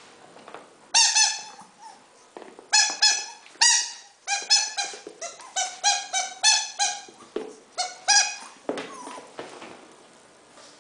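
Rubber chicken squeaky toy squeaking over and over in quick, short, high squeaks as a Yorkshire Terrier puppy bites and chews it. The squeaks stop about two seconds before the end, leaving faint scuffling.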